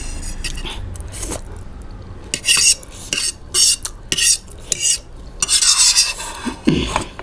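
Cutlery scraping and clinking against a plate in a series of short, irregular strokes while eating.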